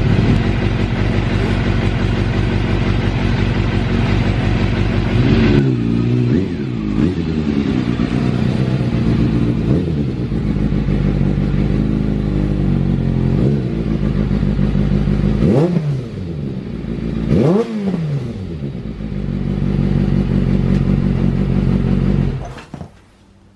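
Kawasaki ZRX400 II motorcycle's inline-four engine running, with the throttle blipped a few times so the revs rise and fall, then the sound cuts off near the end.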